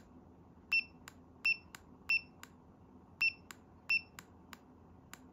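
Launch CRP123 V2.0 scan tool's button beeper giving short, high beeps as the arrow button is pressed to scroll, five times, with a pause in the middle. Fainter button clicks fall between the beeps.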